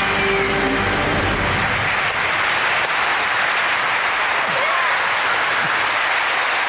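Large studio audience applauding steadily, with the tail of a short musical jingle ending about a second and a half in.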